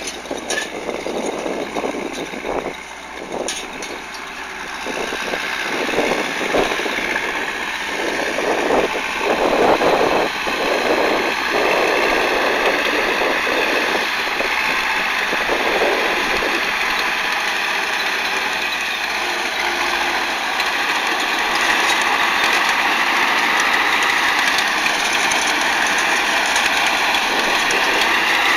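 DT-75ML crawler tractor's diesel engine running steadily under load as it pulls a hitch of three seed drills. It grows louder over the first ten seconds as the tractor draws near, then holds steady.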